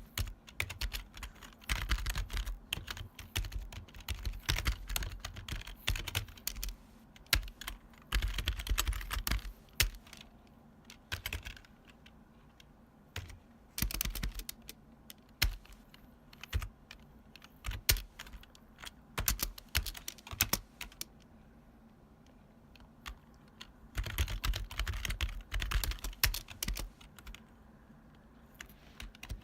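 Typing on a retro long-travel mechanical keyboard: fast runs of loud, clacky keystrokes, broken by a few short pauses with only scattered key presses.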